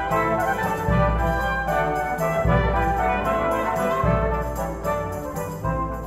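Background instrumental music with a steady beat, a deep bass note changing about every second and a half under held pitched notes.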